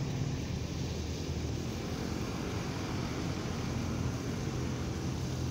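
Steady low rumble of a vehicle engine idling, with a few held low tones under an even hiss.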